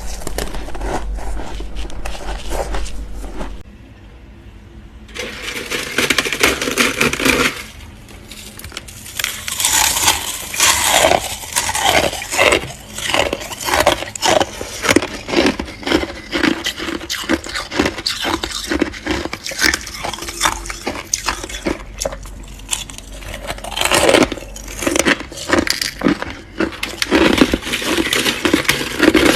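Freezer frost being scraped and crunched: a dense run of crackling, scraping clicks, with a brief quieter pause about four seconds in.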